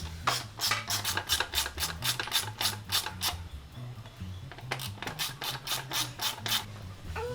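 Ratchet wrench clicking quickly and evenly while backing out the license-plate screws, in two runs with a short pause between them, over background music with a bass line.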